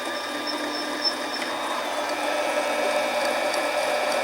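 Harbor Freight 7x10 mini lathe running, its cutter taking a light pass over a dented, uneven spot on an aluminum tube. The interrupted cut makes the tool chug as it cuts and skips, because the surface is not continuous all the way round. The sound grows louder about two seconds in.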